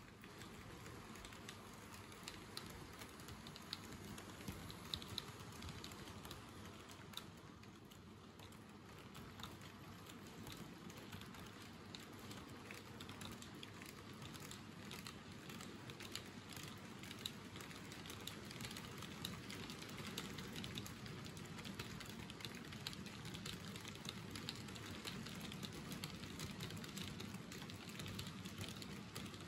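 Model freight train rolling along the track, its wagon wheels clicking over rail joints and points above a steady running rumble. It grows a little louder in the second half.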